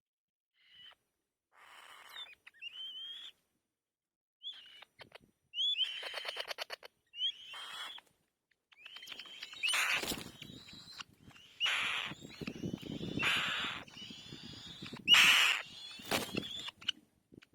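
Young bird's begging calls: a series of short, rising squeaky calls. In the second half come several louder noisy bursts, the loudest near the end.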